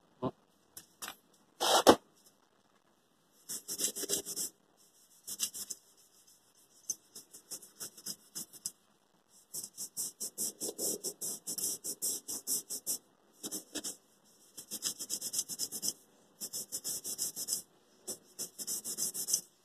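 Scouring sponge scrubbing the metal soleplate of a Philips steam iron, in repeated bursts of fast, scratchy back-and-forth strokes as grime is cleaned off with a cleaning liquid. There is a single knock about two seconds in.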